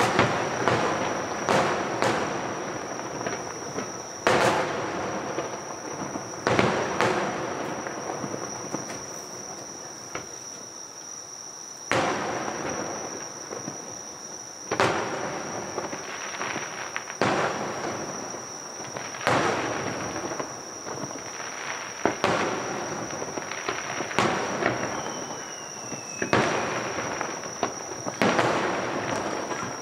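Aerial fireworks shells bursting, a sharp bang every two to three seconds, each followed by a rumbling, crackling tail as the stars spread and fade.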